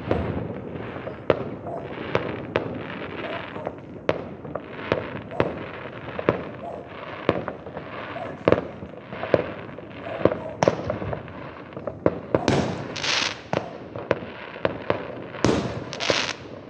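Fireworks going off in the distance: a continuous, irregular string of sharp bangs and pops, several a second at times, with two louder crackling bursts near the end.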